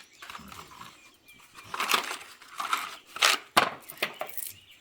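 Irregular rustling and scraping handling noises in short bursts, with a sharp knock about three and a half seconds in; no engine is running.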